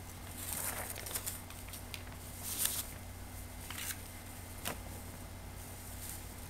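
Steady low hum with a handful of short, faint clicks and rustles scattered through it, the loudest about two and a half seconds in and a sharp click near five seconds.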